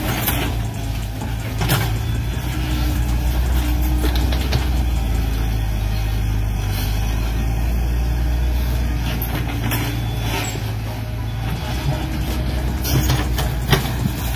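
Radio-controlled model Volvo excavator working, with a steady low engine-like hum, and a few sharp knocks as soil and stones drop into the plastic bed of a toy dump truck.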